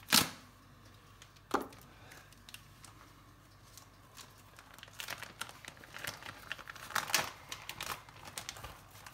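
Cheese being cut and handled in the kitchen: a sharp knock at the start and another about a second and a half in, then from about five seconds in a run of irregular rustling and small clicks.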